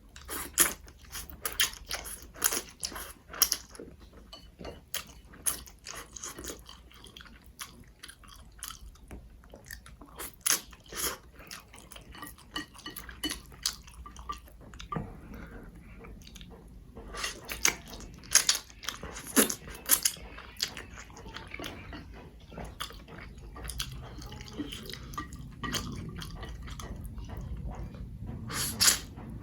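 Close-up chewing of spicy instant noodles and tteokbokki rice cakes: wet mouth clicks and smacks, irregular and coming in clusters.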